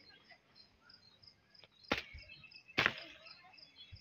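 A long stick striking lemons down from a lemon tree: two sharp knocks about a second apart. Insects chirp faintly in an even rhythm throughout.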